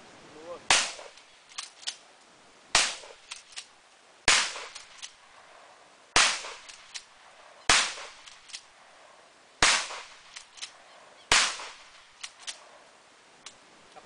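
A 12-gauge Boito pump-action shotgun fired seven times in quick succession, about one and a half to two seconds apart. After each shot come a pair of short clacks as the pump is worked to chamber the next shell.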